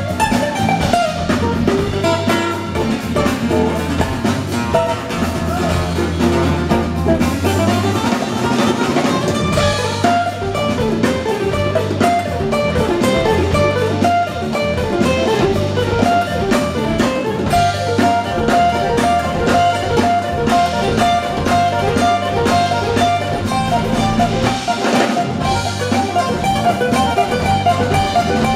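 Two acoustic guitars playing an instrumental passage together live, a busy run of picked notes over a steady low bass line.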